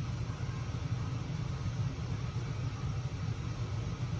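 Steady low background rumble with no clear change or events.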